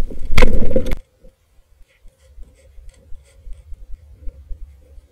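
Underwater, a loud rushing burst for most of the first second cuts off abruptly. Faint, scattered clicking and crackling of the sea follows.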